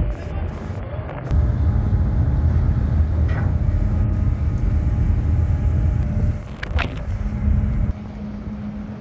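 Engines running with a low, steady rumble and a faint hum, and one sharp knock about seven seconds in.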